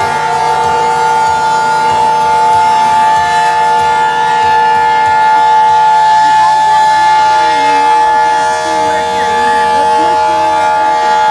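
Outdoor tornado warning sirens sounding steadily at full pitch, several steady tones at once, with faint voices underneath near the end.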